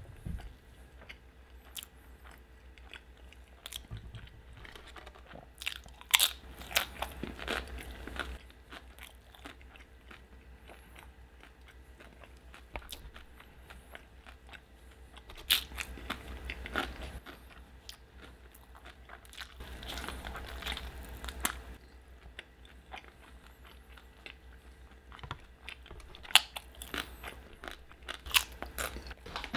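Close-miked biting and chewing of a shrimp burrito, in several bouts of bites and chews with quieter stretches between.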